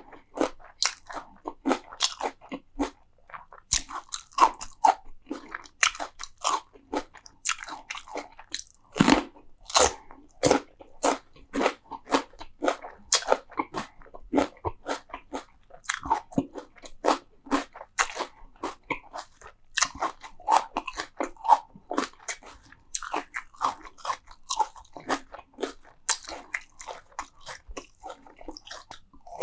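A person biting and chewing crunchy food close to the microphone: irregular, rapid crunches a few times a second, with wet mouth sounds between them.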